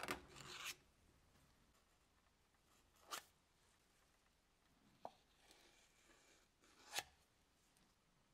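Flat spreader scraping car body filler out of a tin: one scraping stroke at the start, then three short scrapes or taps about three, five and seven seconds in. Faint overall.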